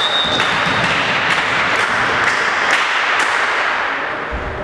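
Volleyball rally in an echoing sports hall. A referee's whistle holds one steady note for the first moment, then comes a run of sharp slaps and thuds of the ball being hit and players' feet on the court.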